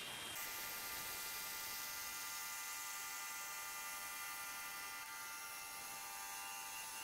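Vertical milling machine running with a steady whine from its motor and drive, the end mill turning at the edge of the intake manifold without heavy cutting noise.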